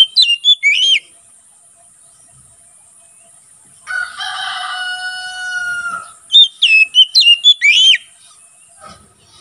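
Oriental magpie-robin singing short bursts of quick, sweeping whistled notes, once at the start and again after about six seconds. In between, a rooster crows once, a single held call of about two seconds. A steady high-pitched buzz runs underneath.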